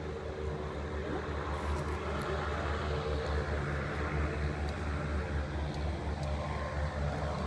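Distant twin turboprop engines of a CN-235 transport aircraft on the runway, a steady drone with an uneven low rumble under it.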